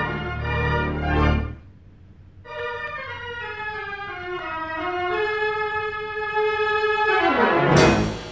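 Theater organ accompaniment: full chords over a bass that break off about a second and a half in, then held chords over a slowly descending line, ending in a loud sweeping crash-like flourish near the end.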